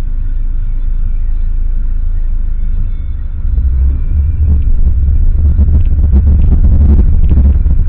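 Car engine and road rumble heard from inside the cabin: a low steady rumble while waiting, growing louder about three and a half seconds in as the car pulls away, with scattered light clicks and rattles.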